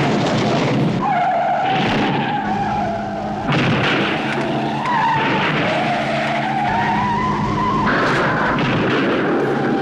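Tyres squealing over running engines as vehicles swerve in a chase. The squeal wavers in pitch, once from about a second in and again from about five to eight seconds.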